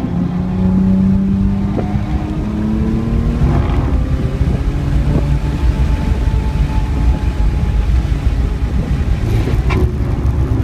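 BMW 335i's turbocharged straight-six under hard acceleration on track, heard from inside the cabin: the engine note climbs over the first few seconds, then settles to a lower, steadier pitch through the corners, over heavy road and tyre rumble.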